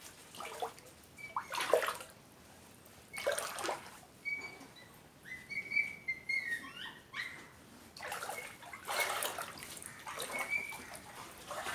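Floodwater splashing and sloshing in separate bursts, busier near the end, with a few short high chirps in between.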